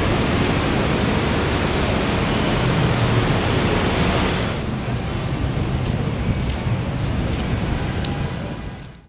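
Loud, steady rushing outdoor noise with no distinct events. Its higher part drops away about four and a half seconds in, and it cuts off sharply at the end.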